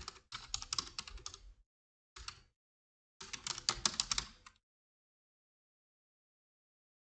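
Typing on a computer keyboard: three quick runs of keystrokes over the first four and a half seconds, the last the longest, then silence.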